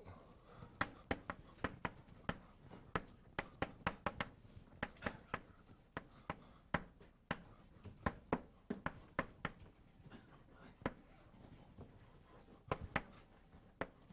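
Chalk writing on a blackboard: sharp, irregular taps of the chalk against the board, several a second, with a pause of about two seconds near the end.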